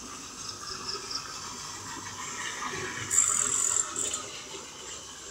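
Water splashing and rushing as a hooked pacu of about 7 kg fights on a taut fishing line at the pond's surface. A brief, louder, high-pitched rasp comes about three seconds in.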